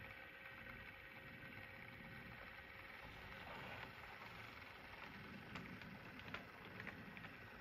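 Faint, steady running of an OO gauge model train on the layout, with a few light clicks about two-thirds of the way in.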